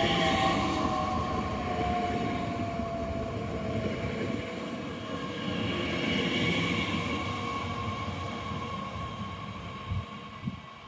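Bombardier Talent 2 (class 442) electric multiple unit running through a station without stopping. It is loud at first, with a whine that falls in pitch over the first few seconds, then fades as it moves away. Two brief knocks come near the end.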